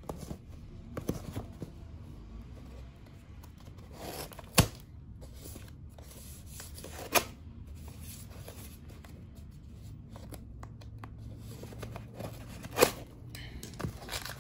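Hands working open a plastic-wrapped cardboard box with a pocket knife: scratching and tearing of the wrap and cardboard, with three sharp knocks, at about four and a half, seven and near thirteen seconds in.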